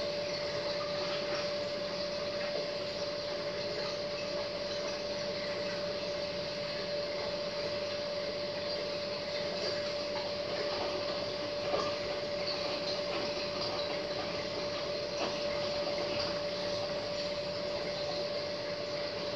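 Hotpoint front-loading washing machine running at the changeover from wash to first rinse: a steady hum with one held tone and water noise as the drum turns, and a small knock about twelve seconds in.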